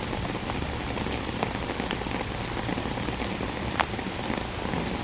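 Steady rain falling, an even hiss with scattered drops ticking, one sharper drop tick near the end.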